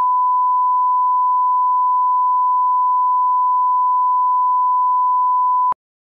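Steady 1 kHz line-up test tone, the reference tone played with colour bars at the head of a broadcast tape for setting audio levels. It stops abruptly with a small click near the end.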